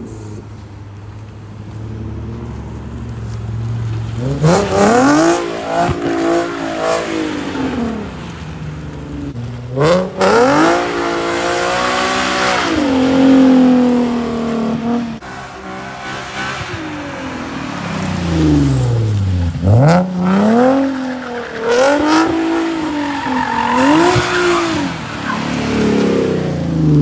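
Nissan 370Z's V6 engine running steadily at first, then from about four seconds in revving hard again and again, its pitch climbing and dropping, with tyres spinning and squealing on the asphalt as the car does skids. The car is loud.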